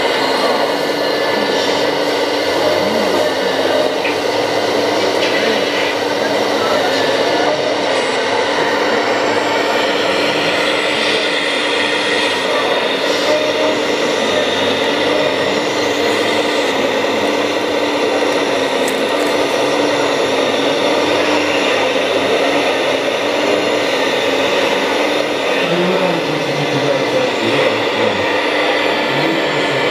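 Radio-controlled Liebherr 946 scale hydraulic excavator working, a steady mechanical whine with several constant tones from its hydraulic pump and motors as it digs and loads soil.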